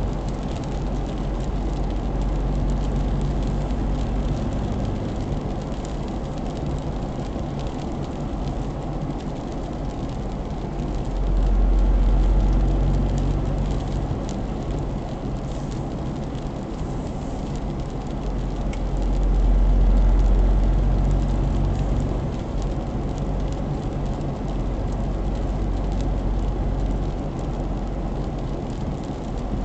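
Steady road noise inside a car's cabin cruising at about 67 km/h: a deep tyre and engine rumble that swells louder twice, about twelve seconds in and again about twenty seconds in.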